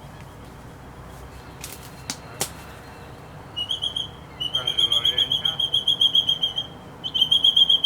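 A bird calling in fast pulsed trills at one steady high pitch, in three runs starting about halfway through, the middle one longest. A few sharp clicks come before it.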